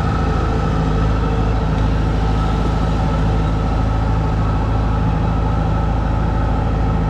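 Kubota combine harvester's diesel engine running steadily under way as the machine creeps forward, with a steady high whine over the low engine note.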